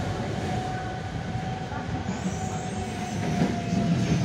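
Naples Metro Line 1 train running on the track, heard from on board: a steady low rumble of wheels and running gear, with a thin high whine held steady. A fainter, higher squeal joins about halfway through.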